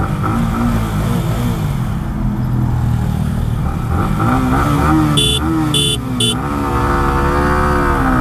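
Yamaha R15M's 155 cc single-cylinder engine idling at the start line, then revving and accelerating away about four seconds in, its pitch rising and falling.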